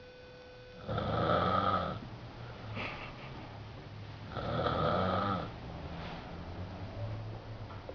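Snoring in sleep: two long snores, each about a second, some three and a half seconds apart, each with a low buzzing pitch, with quieter breathing between them.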